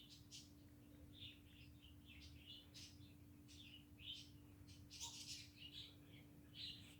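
Faint, high little squeaks and breathy whimpers from a dog dreaming in its sleep, coming in short scattered bursts.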